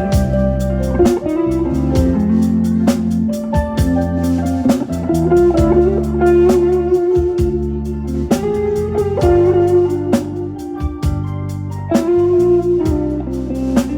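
Live band playing an instrumental piece: a guitar melody over sustained keyboard chords and bass, with a steady drum beat, played through PBL T24N loudspeakers.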